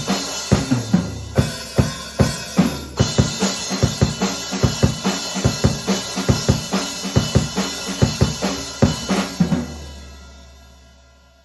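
Acoustic drum kit played alone, with no backing track: a fast, dense groove of bass drum, snare and cymbal hits. A last crash about nine and a half seconds in rings out and fades away.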